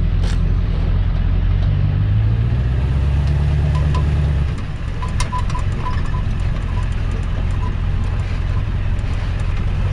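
Tow truck's engine running as it drives off towing a car on its wheel-lift; the engine note drops about four and a half seconds in, with a few light clinks around the middle.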